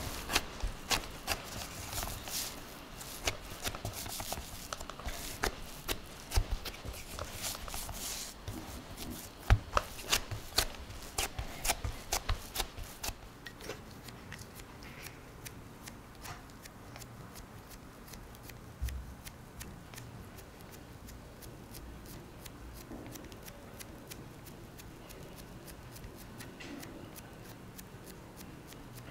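Hands gathering and pressing crumbly yakgwa dough in a glass bowl: rustling with many sharp crackles and clicks through the first half. It then turns much quieter, with soft pressing as the dough is pushed into a mold.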